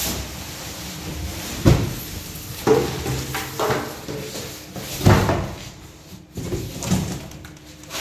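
Large cardboard appliance carton being opened and pulled off by hand: cardboard scraping and rustling, with four dull knocks spread through.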